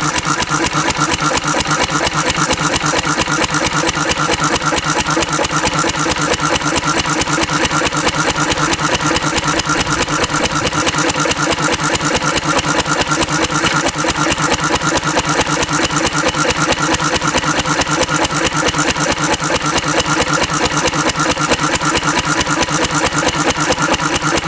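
Antique 3-horsepower Cushman Cub four-stroke stationary engine, throttle-governed, running steadily with an even firing beat. It is running on almost pure Zippo lighter fluid in place of gasoline.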